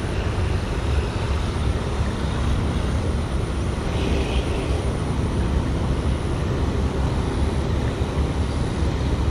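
Steady low rumbling noise with no clear pitch, even throughout.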